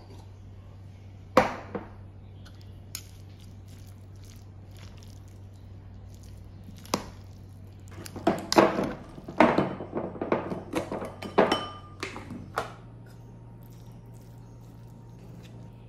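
Metal spoons tossing a dressed cabbage salad in a metal bowl: a few separate clinks, then about four seconds of quick knocks and scrapes against the bowl.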